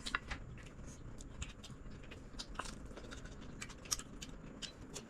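Eating sounds: scattered soft clicks and light taps of chewing and handling food.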